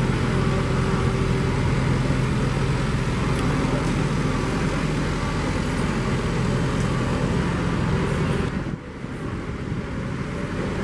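John Deere utility tractor's diesel engine running steadily at working throttle as it tows a flatbed trailer. The sound drops for a moment about nine seconds in, then picks back up.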